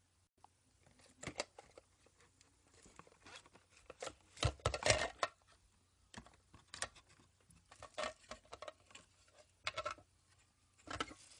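Packaging being opened and handled by hand: scattered rustles, light taps and tearing sounds, with the loudest stretch of rustling about halfway through.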